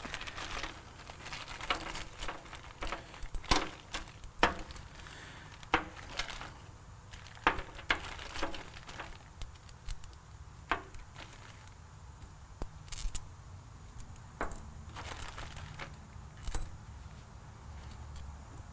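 Loose metal hardware (nuts, bolts and washers) from the pump kit's parts bag, clinking and rattling as it is sorted by hand. Irregular sharp clinks come every second or so.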